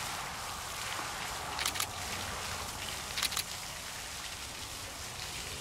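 Garden pond fountain jet splashing steadily back into the water, an even patter like rain on a surface. Two brief ticks come about a second and a half apart.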